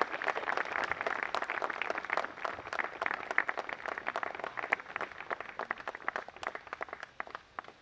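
Audience applauding, a steady patter of many hands clapping that thins and dies away near the end.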